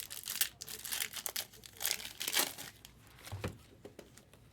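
Crinkling and tearing of trading-card pack wrapping, handled in irregular crackles, with a soft low thump about three and a half seconds in.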